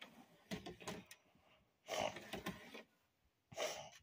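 Small clicks and rattles of a plastic model steam locomotive being handled and set onto the track rails, in a few short bursts.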